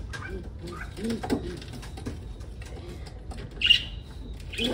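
Racing pigeons cooing in the loft, low and wavering, with some wing flaps and scuffling and one short, sharper sound about three-quarters of the way through.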